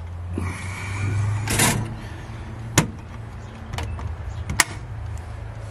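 A handful of sharp metal clicks and knocks as a frozen foil tray is put into a 12-volt travel oven and its door is handled and shut, the loudest about a second and a half in. A steady low hum runs underneath.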